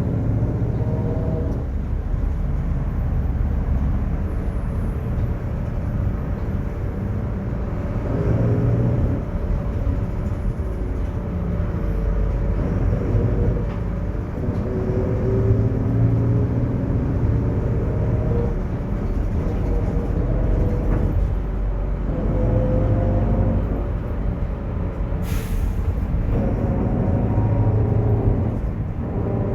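Mercedes-Benz OF-1721 bus under way, its diesel rumbling with a growling whine from the differential that rises and falls in pitch with road speed and comes and goes in stretches of several seconds. A brief hiss about 25 seconds in.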